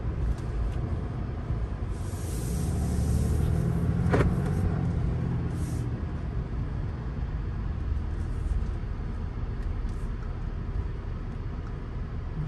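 Engine and road noise inside the cab of a new Ram heavy-duty truck as it drives, a low steady rumble that swells for a few seconds as the truck pulls ahead, with a single sharp click about four seconds in.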